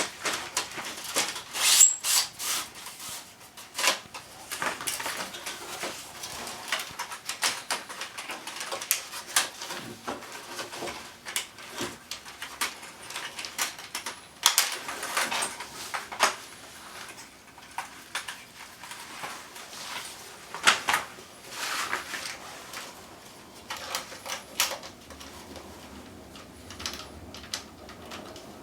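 Irregular clicks, knocks and short scrapes of air conditioner parts being handled and unclipped during disassembly, with a few sharper snaps.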